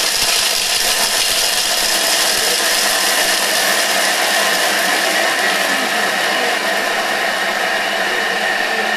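Thermomix food processor's blade running at speed 8, grinding broken dark and milk chocolate pieces. The sound is a loud, steady whirr.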